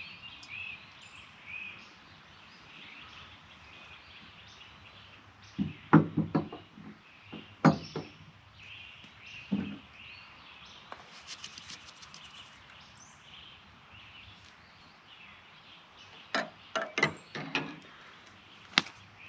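Birds chirping in the background while a cooking pot, spoon and mug are handled. There are sharp clinks and knocks about six and eight seconds in, a brief rattle near the middle, and a quick run of clinks near the end.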